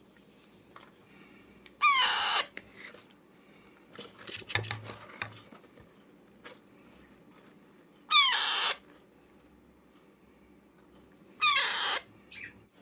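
Baby Alexandrine parakeet giving three loud begging calls at feeding time, each about half a second long and falling in pitch. A patch of small clicks and a soft knock comes in the middle.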